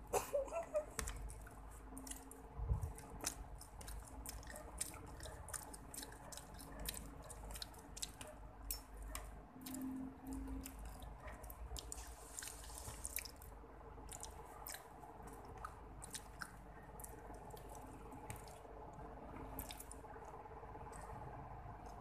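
Close-up chewing and wet mouth sounds from eating fried chicken, with many small clicks scattered throughout and light taps of a metal fork and spoon on a paper food tray.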